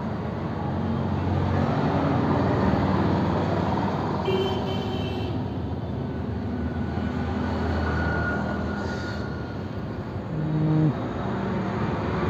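Road traffic passing steadily, vehicles swelling and fading as they go by, with a short high horn toot about four seconds in.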